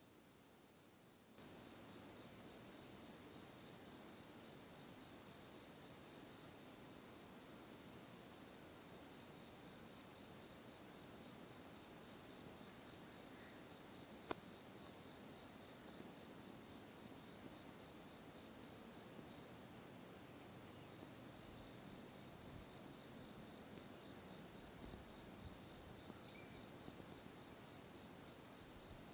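Steady, high-pitched insect chorus, a continuous shrill trill. There is a single sharp click about halfway through and two brief faint chirps a few seconds later.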